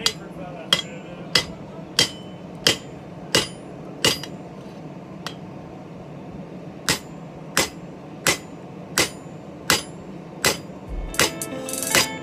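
A hand hammer striking metal in an even rhythm, about three blows every two seconds. Six blows come, then a pause of a couple of seconds, then six more, with a steady low hum underneath.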